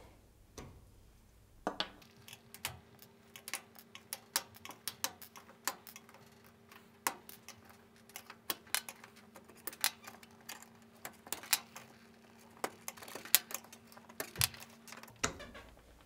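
Plastic oven control knobs being levered off their spindles with a flat-blade screwdriver and set down on a glass hob: a long run of small, irregular clicks and clacks.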